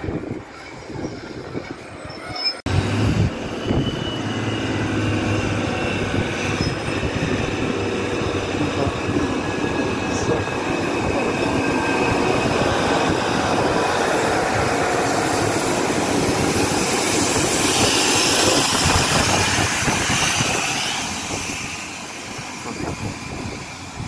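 A diesel multiple-unit train running along the platform close by, with its wheels squealing thinly on the rails. The sound jumps up suddenly about two and a half seconds in, builds to its loudest about three-quarters of the way through, then falls away near the end.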